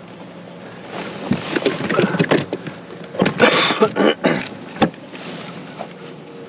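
Irregular knocks, clatter and rustling of gear being handled in a fishing boat, over a faint steady hum.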